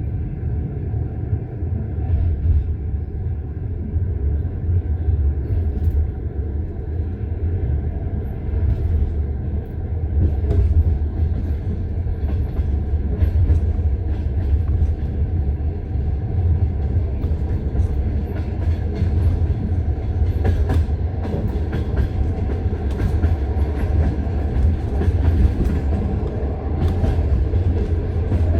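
Passenger train's wheels clicking over the rail joints of jointed (non-welded) track, heard from inside the carriage over a steady low rumble. The clicks come thicker and sharper from about ten seconds in.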